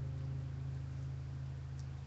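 Low guitar chord sustaining as a steady drone, its upper overtones already faded and only the deep notes ringing on.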